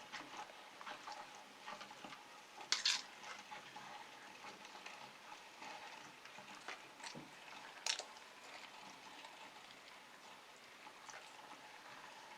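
Tomatoes being crushed in a meat grinder: faint wet crackling and squishing, with a sharper click about three seconds in and another about eight seconds in.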